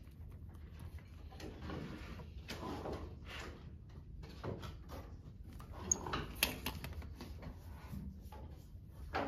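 Pencil scratching across paper as lines are drafted on a drawing board, with a few sharp clicks and taps of drafting tools, the last and strongest knock near the end.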